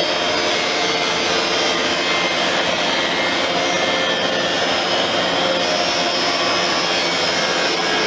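Eureka AirSpeed All Floors upright vacuum cleaner running steadily as it is pushed over a tile floor, picking up spilled grinds.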